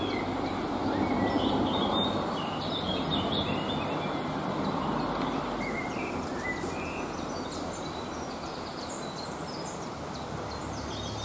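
A steady rumble of distant road traffic mixed with a brook tumbling over rocks, louder in the first few seconds and then easing off. Small birds sing and chirp throughout.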